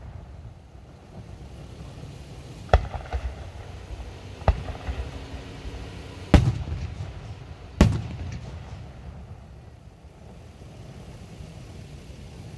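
Fireworks bursting: four sharp booms spaced a second or two apart, the last two the loudest, each followed by a low rolling rumble and a few smaller crackling pops.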